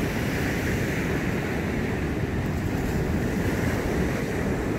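Ocean surf breaking and washing up a sandy beach, with wind buffeting the microphone; a steady rushing noise.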